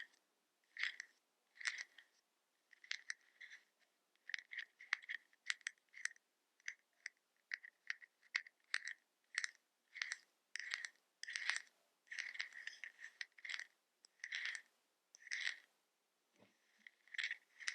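ASMR-style light tapping on hard makeup packaging: a run of quick, uneven taps, roughly one or two a second, each with a brief ringing tone.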